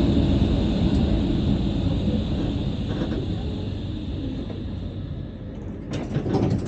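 Vario tram running, heard from the driver's cab: a steady rumble that gradually grows quieter, with a few sharp clicks near the end.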